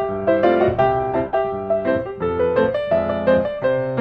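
Background piano music: a quick run of notes over held low notes.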